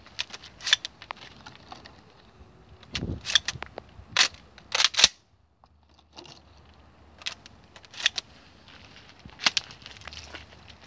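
Tactical shotgun being loaded and readied: a scattered series of sharp metallic clicks and clacks as a shell goes in and the action is handled, with a duller knock about three seconds in.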